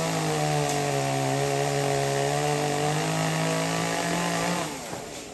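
Two-stroke chainsaw running at high speed, its pitch wavering slightly, then dropping away about four and a half seconds in.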